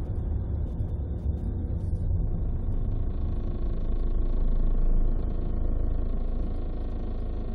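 Ford TDCi common-rail diesel engine running with a steady low rumble. It swells in level about five seconds in, then settles back. It is recorded to show an abnormal noise the owner hears from it.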